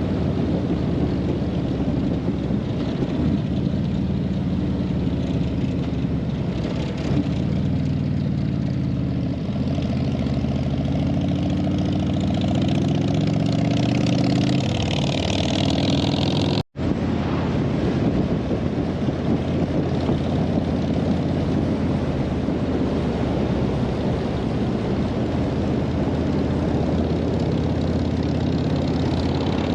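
Harley-Davidson touring motorcycle's V-twin engine running at road speed, its pitch rising and falling with the throttle. The sound cuts out for an instant about two-thirds of the way through.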